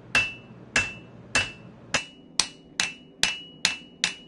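Blacksmith's hand hammer striking red-hot iron held in tongs on an anvil: about nine blows that quicken as they go, each leaving a short ring.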